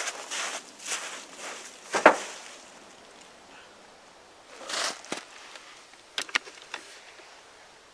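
Footsteps crunching through dry leaves and snow, about two steps a second, then a single sharp knock about two seconds in, the loudest sound. Later a short rustle and a few light clicks and taps near the end.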